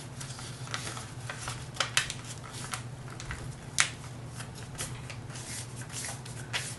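A sheet of copy paper being folded and creased by hand: a run of crisp rustles and crackles, with sharper crinkles about two seconds in and again near four seconds, over a faint steady low hum.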